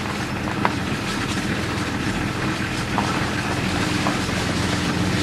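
Engine and road noise of a moving vehicle, a steady hum with a few light knocks and rattles.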